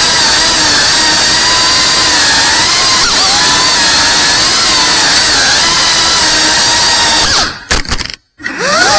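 Cinewhoop FPV quadcopter's brushless motors and ducted propellers whining loudly, the pitch gliding up and down with the throttle. Near the end the whine drops away and cuts out for a moment, then comes back rising.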